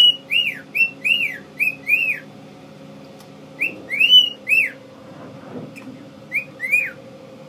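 Cockatiel whistling a string of short up-and-down notes in three bursts, about ten notes in all, over a faint steady hum.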